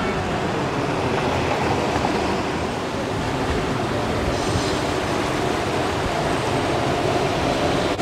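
Trolley-replica tour bus idling close by: its engine runs with a steady, even noise, and a faint steady hum comes in near the end.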